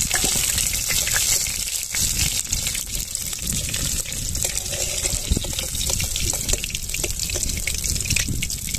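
Whole small bhetki (barramundi) fish frying in hot oil in a kadai: a steady sizzle with many sharp crackles and pops.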